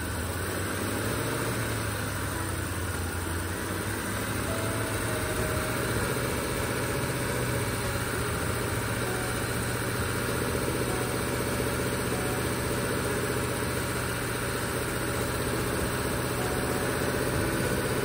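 BMW X5 E70 4.8i's V8 engine idling steadily with the air conditioning compressor running, during an R-134a refrigerant charge.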